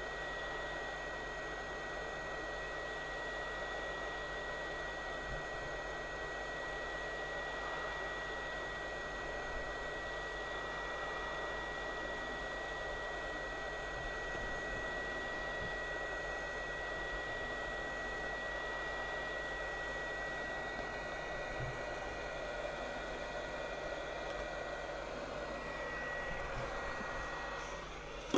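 Hot-air rework gun blowing steadily: an even rush of air with a steady high whine from its fan. The whine fades out near the end.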